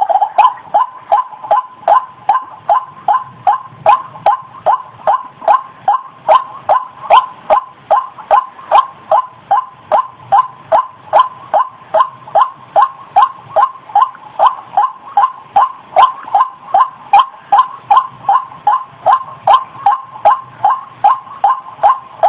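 White-breasted waterhen call, a lure recording: short harsh notes repeated in an even rhythm, about three a second, each sliding slightly down in pitch.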